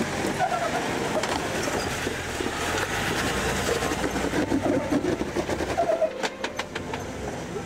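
Jeep Wrangler Rubicon's 4.0-litre straight-six running under load as the Jeep climbs a sandstone ledge, with a quick run of sharp knocks near the end.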